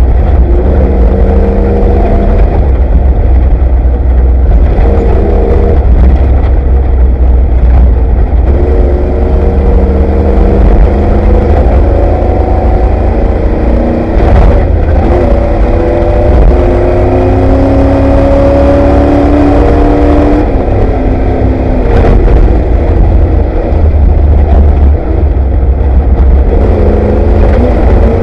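Off-road race vehicle's engine heard from inside the vehicle, its pitch repeatedly climbing and dropping as the throttle is worked, over a heavy low rumble. There are two sharp knocks, one about halfway through and one about three-quarters of the way.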